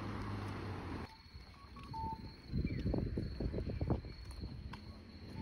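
Steady traffic rumble that cuts off abruptly about a second in. Crickets then chirp with a thin, steady high trill in a quieter setting. Near the middle comes a short run of loud, low thuds.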